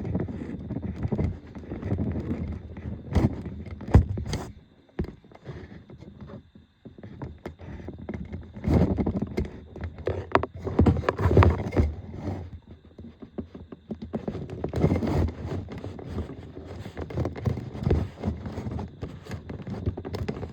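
Hands working on a smoke alarm's wiring: irregular rustling, scraping and small clicks and knocks, with one sharp click about four seconds in.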